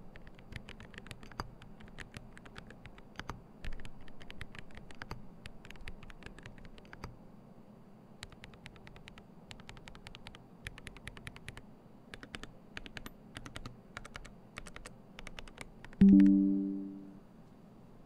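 Typing on a GMMK Pro mechanical keyboard with Boba U4T tactile switches and ceramic keycaps: a quick run of key clicks with a short pause partway through. Near the end the typing stops and a loud pitched chime of a few tones sounds once and dies away over about a second.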